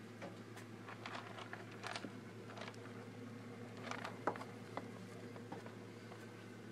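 Faint scattered rustles and small clicks of pet rats moving about their cage on wire ramps and fleece bedding, over a low steady hum.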